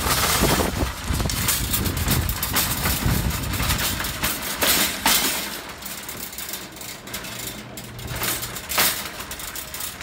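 Wind rumbling on a phone's microphone while walking outdoors. About halfway through it dies down on stepping indoors into a large hall, with a couple of sharp knocks.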